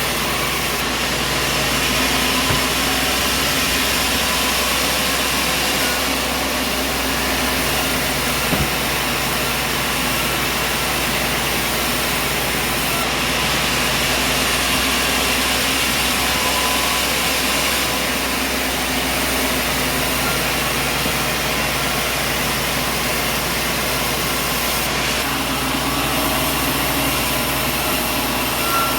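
Steady engine and machinery noise of a sawmill running, unbroken, with a few slight shifts in tone.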